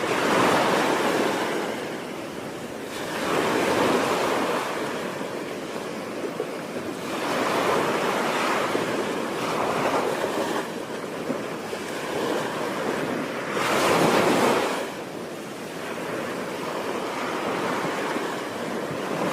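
Ocean surf breaking on a beach: a steady wash that swells and falls back every few seconds as the waves come in, the biggest surge about fourteen seconds in.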